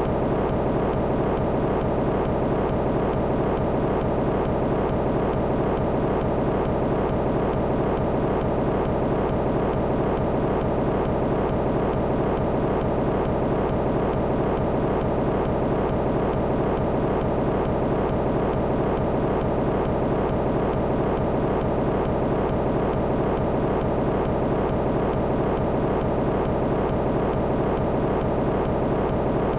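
A steady, dense droning noise texture with a faint even pulse, holding one level without change.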